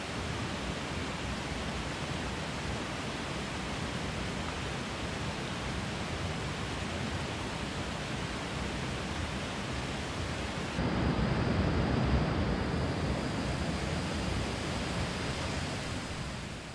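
Steady rush of flowing river water with no other sound standing out. About 11 seconds in it grows louder and fuller, and it fades out at the very end.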